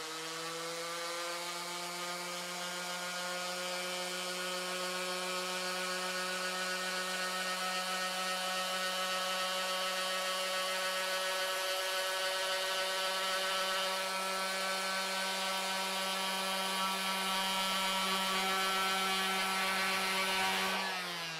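Electric sander fitted with 60-grit paper running steadily while it is passed slowly over a rough board, a steady motor whine with sanding hiss. It is switched off near the end and its pitch starts to fall as it winds down.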